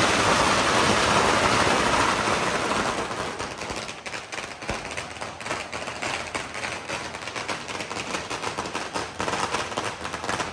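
Loud dense noise for the first few seconds, then a rapid, irregular series of sharp cracks and pops that carries on at a lower level.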